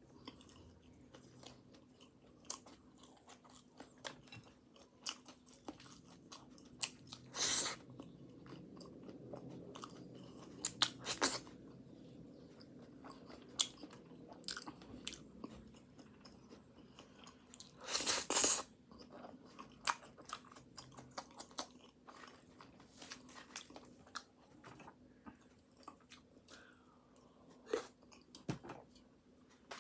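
Close-miked chewing of flaky pastry, with many small wet clicks and crunches throughout and two louder, half-second crunches about a quarter and about three-fifths of the way through.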